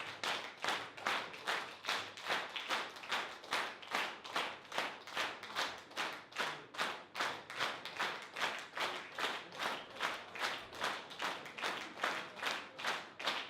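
Audience clapping in unison in a steady rhythm, a little over two claps a second, the call for an encore at the end of a concert.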